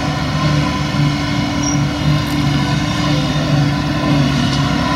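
Claas Jaguar 950 self-propelled forage harvester running steadily while chopping grass, together with the tractor pulling the trailer beside it: a loud, even machine drone with a constant hum.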